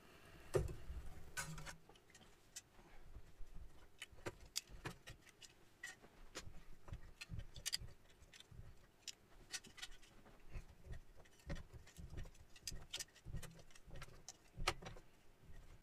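Metal key levers of a Yamaha CS-80's weighted black keys clicking and clinking as they are lifted out of the keybed one by one and gathered together in the hand. Faint, irregular light clicks throughout, the loudest about half a second in.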